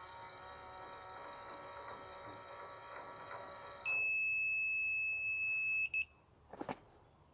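Agrimatic automatic chicken coop door running its small motor with a steady hum as it raises the sliding aluminium door. About four seconds in, its controller gives one loud, steady, high electronic beep lasting about two seconds, and a couple of light knocks follow.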